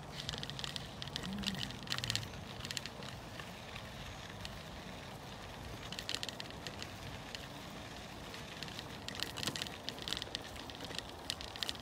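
Wind buffeting a microphone that has no windsock, while a bicycle rolls along a sandy, gritty path. Bursts of crackling come from the tyres on the grit, about a second and two seconds in, around six seconds, and again from about nine seconds.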